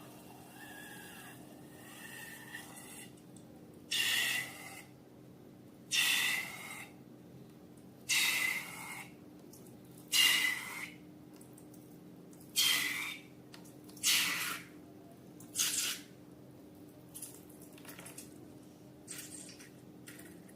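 Slime squeezed and pressed in a steady rhythm, seven squelches of trapped air about every two seconds, each under a second long, then a few fainter ones.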